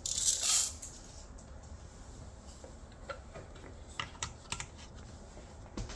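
Hands handling an espresso grinder's parts: a brief rushing rattle at the start, then a few scattered sharp plastic and metal clicks.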